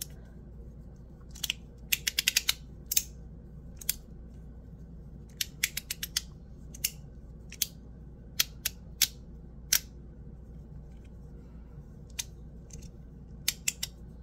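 Sharp metallic clicks from a titanium fidget slider being worked by hand: a quick run of about six clicks early, then single clicks spaced roughly a second apart, and a couple close together near the end.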